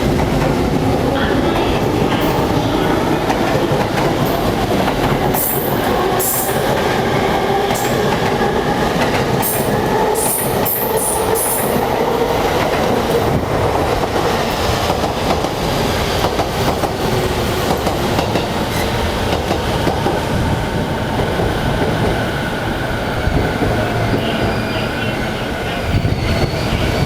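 Electric commuter train running past on the tracks beside the platform: a steady rumble with a gliding motor whine, and a cluster of sharp high wheel squeals and clacks from about five to twelve seconds in.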